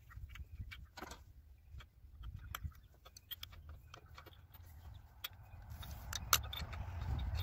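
Scattered light metallic clicks of an adjustable wrench and steel hydraulic fittings being handled and tightened on a wood splitter's control valve, over a low rumble. The sharpest click comes about six seconds in, and a hiss builds near the end.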